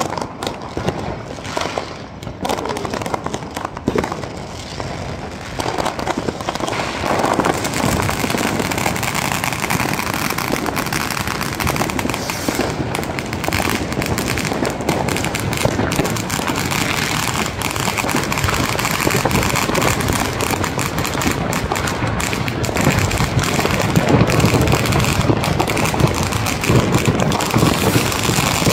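Ground fireworks going off at close range: dense, continuous crackling and popping, growing louder about seven seconds in.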